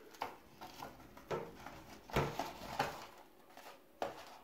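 A handful of soft rustles and taps as a cardboard tea box and its paper tea bags are handled on a tabletop.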